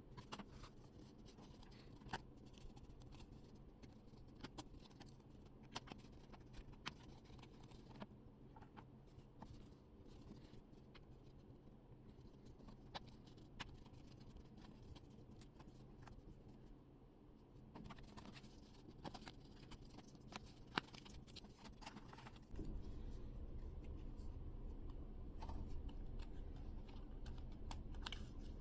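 Faint, scattered clicks and scratches of stiff paper puzzle pieces being handled, pressed out and slotted together while a 3D paper art puzzle is assembled. A low steady hum comes in about three quarters of the way through.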